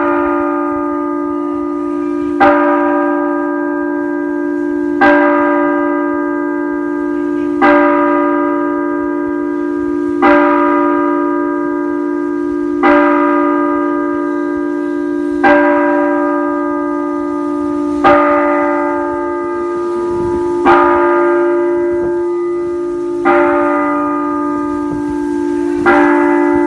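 A single church bell of the Sagrada Família tolling, very loud: evenly spaced strokes about every two and a half seconds, eleven in all, each one ringing on into the next.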